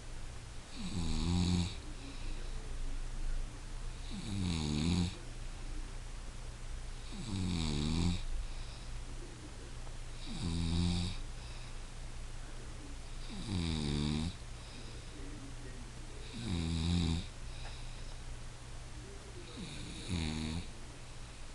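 A woman snoring in her sleep, seven pitched snores at a steady pace of about one every three seconds.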